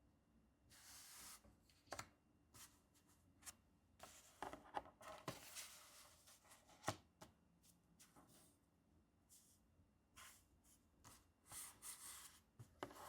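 Faint handling of paper sticker sheets: soft rustling in a few short stretches, with scattered light taps and clicks, the sharpest about seven seconds in.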